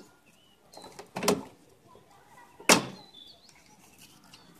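Plastic side grille panel of a Symphony air cooler being pulled off the cooler body. A few knocks and scrapes come about a second in, then one sharp plastic clack a little past halfway.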